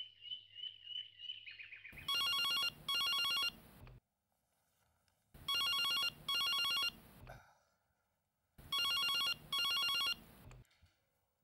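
Birds chirping briefly, then a cordless landline telephone ringing with an electronic double ring: three ring-ring pairs about three seconds apart, and a fourth starting near the end.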